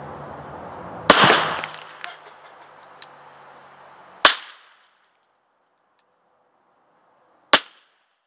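Three gunshots from a Smith & Wesson .32 revolver firing .32 S&W Long cartridges, each a sharp crack. They come about three seconds apart: about a second in, about four seconds in and near the end. The first trails off longest.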